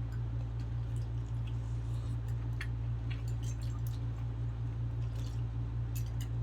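Close-up eating sounds: soft, wet chewing and mouth clicks from food eaten by hand, with scattered faint ticks, over a steady low hum.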